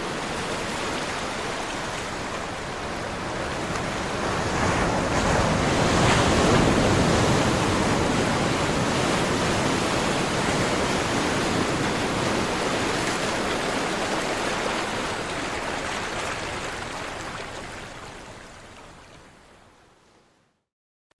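Caribbean sea surf: a steady wash of breaking waves that swells to its loudest about six seconds in, then fades gradually away to silence near the end.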